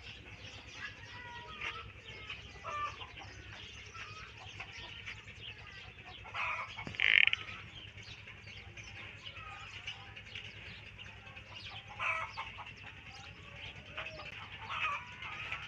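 Chickens clucking with small birds chirping throughout, and a brief, louder call about seven seconds in.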